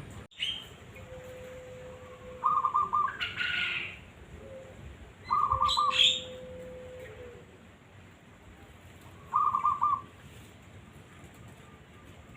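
Birds calling, from a birdsong recording for tutoring caged songbirds. A short trilled call comes three times, about every three to four seconds, and is the loudest sound. Between the trills there is twice a long low steady whistle and a few brief high chirps.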